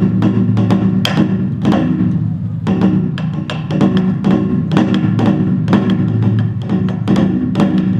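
Korean traditional music accompanying a seungmu dance: rapid, dense drum strokes over steady sustained pitched tones.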